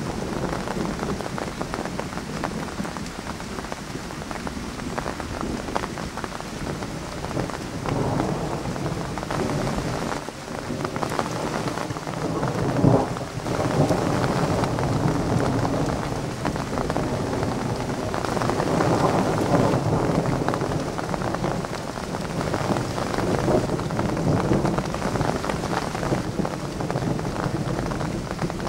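Thunderstorm: steady rain falling, with thunder rumbling and rolling in long swells. A sharp, loud thunderclap comes about halfway through.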